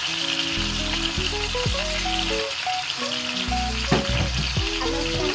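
Onions and tomatoes frying in hot oil in a pan, with a steady sizzle and a short knock about four seconds in.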